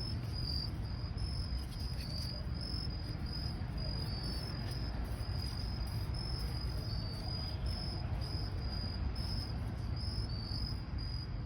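Insects, most likely crickets, chirping steadily in short repeated pulses over a constant low rumble.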